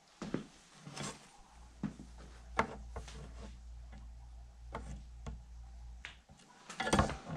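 Scattered knocks, clicks and shuffles of someone moving about and handling tools and wood, with a louder clatter of handling near the end. A faint low hum comes on about a second and a half in and stops about six seconds in.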